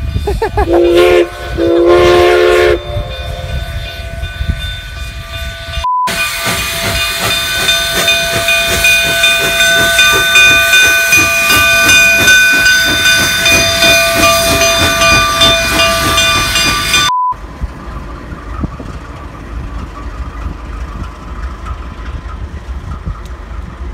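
Train running on its rails with steady high-pitched squealing over a rumbling noise. Near the start come two short pitched blasts. The sound cuts off abruptly about six seconds in and again about seventeen seconds in, and is loudest in the middle stretch.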